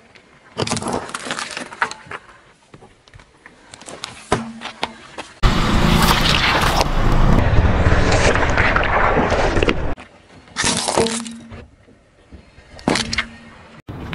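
A car tyre rolls over small objects on asphalt and crushes them: a plastic cup of slime, then an Orbeez-filled squishy toy. The sound comes as short bursts broken by cuts, with one long noisy stretch of crushing lasting about four seconds in the middle.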